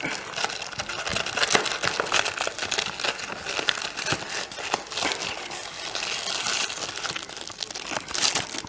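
Cardboard snack-cake box and the wrapped cakes inside it crinkling and rustling as a hand rummages through the box to pull one out.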